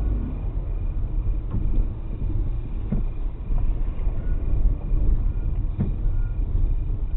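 Road and engine rumble from a moving car, picked up by a dashboard camera inside the cabin, with a few light knocks from bumps about a second and a half, three, and six seconds in.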